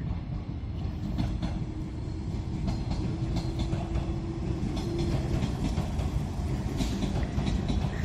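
Yakumo limited express train running past, wheels clicking over the rail joints over a steady low rumble, with a steady hum for the first few seconds.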